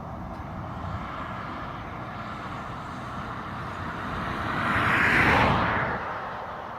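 A car driving past, its tyre and engine noise building to a peak about five seconds in and then fading away.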